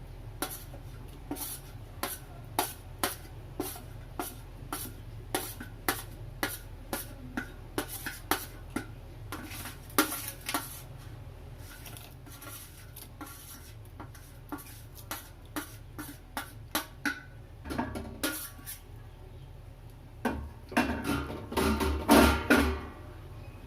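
Metal utensils clattering against a cooking pot as ingredients are added to heating water, loudest near the end, over a steady low hum and even light clicks about two a second.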